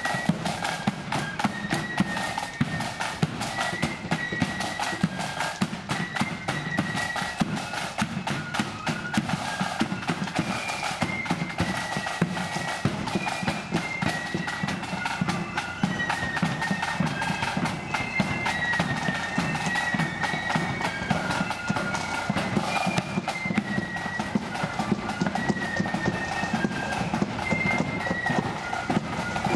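Marching band playing a high tune over drums.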